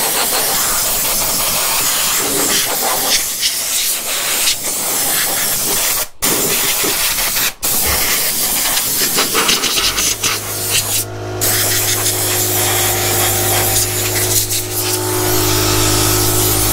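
Compressed-air blow gun hissing as it blasts water off a washed motorcycle, with two brief breaks about six and seven and a half seconds in. About ten seconds in the workshop air compressor kicks in with a steady hum under the hiss, pumping its tank back up.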